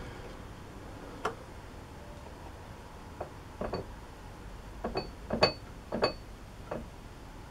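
Irregular light metallic clinks and taps of small steel tools or parts being handled, about a dozen, some with a brief high ring. They cluster in the second half, with the loudest about five and a half seconds in.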